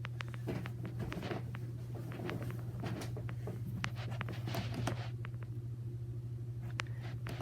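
Progress Lighting builder-grade ceiling fan running on high speed, its motor giving a steady low hum, with irregular light clicks and taps throughout.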